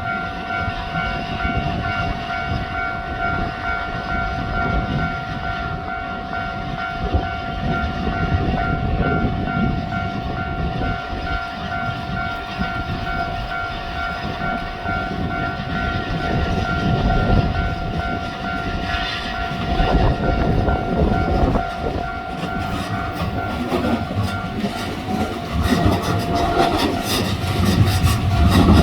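A Japanese level-crossing warning bell rings continuously. About two-thirds of the way in, a JR Narita Line train approaches and runs over the crossing, its wheels clattering over the rail joints louder and louder.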